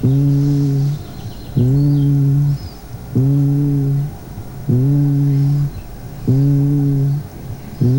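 Patient's voice saying a long 'ee' (the letter i) about five times, heard through a stethoscope on the chest wall. Each call lasts about a second, comes every second and a half or so, and sounds muffled and low. This is normal vocal resonance over healthy lung, with no egophony.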